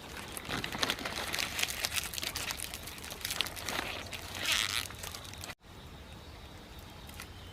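Rustling and crackling of leaves and branches being handled. A little past halfway it cuts off abruptly, leaving a quieter, steady background with a faint high hum.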